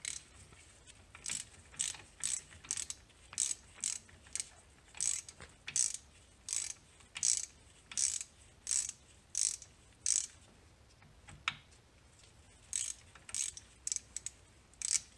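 Hand ratchet wrench clicking in short bursts, about two a second, as it backs out the center cross bolt of a Ford Focus RS Brembo brake caliper. The clicking pauses briefly about three-quarters of the way through, then resumes.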